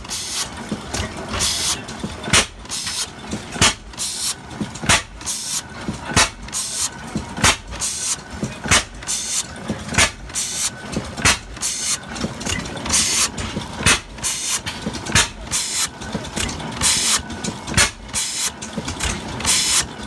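A 1920-21 30 HP Western throttle-governed natural-gas engine, running on propane, turns over steadily. It fires with an even beat about every 1.2 seconds, lighter clicks falling between the beats, and it fires on every cycle rather than hitting and missing, the sign of throttle governing.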